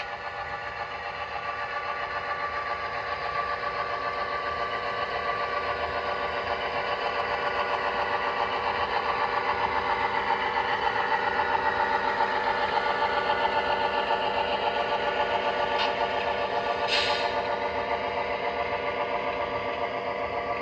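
Model Great Northern F-unit diesel locomotives passing with their diesel engine sound running, mixed with the whir of wheels on the track; it builds to its loudest around the middle as the locomotives go by. Two short clicks near the end.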